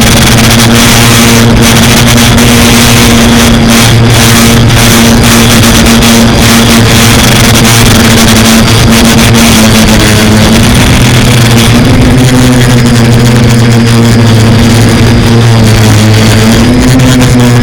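Quadcopter's electric motors and propellers buzzing loudly and steadily, with hiss over the hum. The pitch shifts slightly a few times as the throttle changes.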